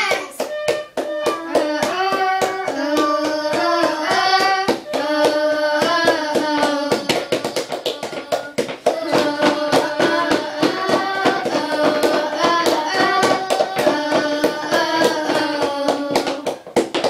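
Young girls singing a song together with a small side-blown flute playing the tune, while rapid, regular hand claps keep the beat.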